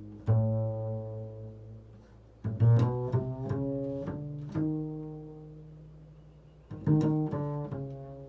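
Improvised instrumental music of low plucked string notes. Clusters of notes are struck near the start, at about two and a half seconds, and again near the end, and each cluster rings on and slowly fades.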